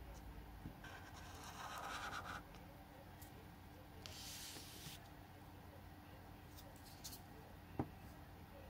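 Felt-tip marker scratching faintly across paper as the last strokes of a character are drawn, in the first two and a half seconds. Later a brief hiss about four seconds in, and a single sharp click near the end.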